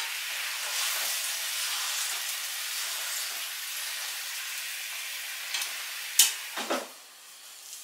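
Chicken sizzling in sauce in a frying pan while it is stirred with chopsticks. A sharp click comes a little after six seconds in, and the sizzle then dies down.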